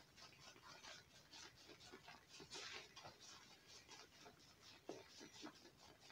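Faint, scratchy swishing of a shaving brush's bristles being rubbed back and forth over a puck of Proraso red shaving soap in its tub, in quick, irregular strokes: the brush being loaded with soap.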